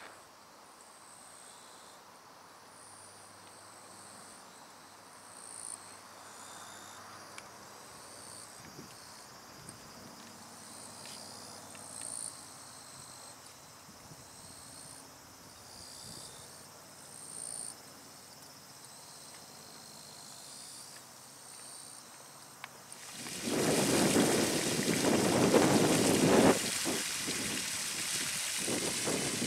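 Insects calling faintly in high-pitched pulses that repeat about once a second. About 23 seconds in, a much louder rushing noise that rises and falls takes over.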